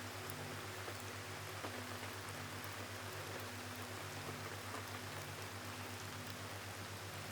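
Steady gentle rain falling, an even hiss with faint scattered drop ticks, over a low pulsing hum.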